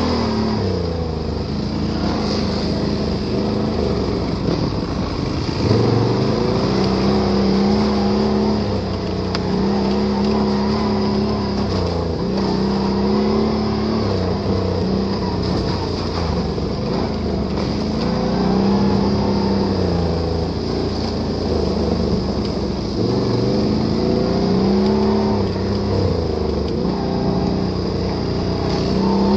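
Can-Am Renegade ATV engine running while the quad is ridden off-road, revving up and easing off over and over with the throttle.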